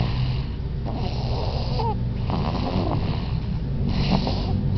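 A baby snoring loudly, about three snoring breaths in a row over a continuous low rumble.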